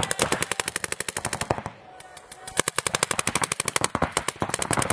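Paintball markers firing rapid strings of shots, about a dozen sharp pops a second, with a brief lull a little under two seconds in before the rapid fire picks up again.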